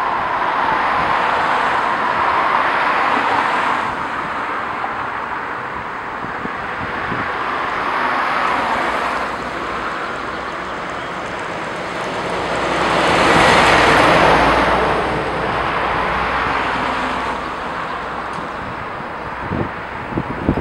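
Road traffic passing on a roundabout road: cars go by one after another with tyre and engine noise. The loudest pass, about 13 to 15 seconds in, has a deep rumble from a heavy vehicle such as a lorry or bus. Wind buffets the microphone a few times near the end.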